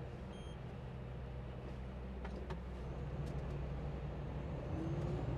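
Steady drone of a Volvo truck's diesel engine and road noise heard inside the cab while driving, with a few faint clicks in the middle.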